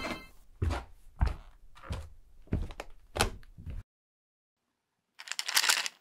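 Footsteps on a hard floor: five thudding steps at an even walking pace, about two-thirds of a second apart. A short scraping noise follows near the end.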